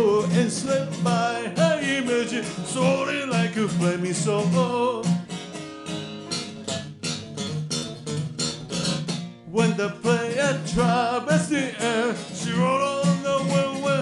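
A man singing to his own strummed acoustic guitar, the strokes coming in a steady rhythm under the voice.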